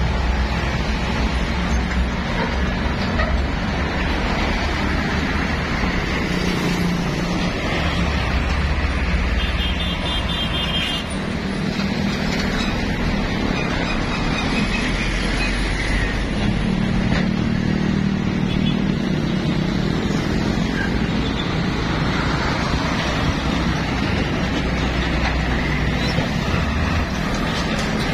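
Heavy road traffic passing close by: diesel container trucks and tanker trucks mixed with motor scooters, a continuous blend of engine and tyre noise whose low engine sound swells and fades as each truck goes by.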